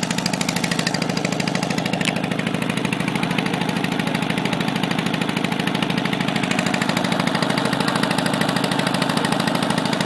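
Small inboard engine of a flood-relief boat running steadily under way, with a fast, even thudding beat.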